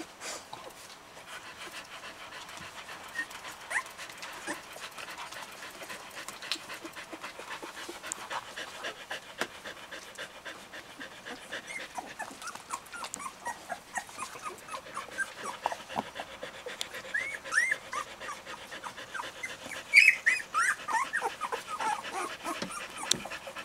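Newborn puppies squeaking and whimpering in short, high-pitched peeps, sparse at first and growing more frequent and louder in the second half, loudest near the end.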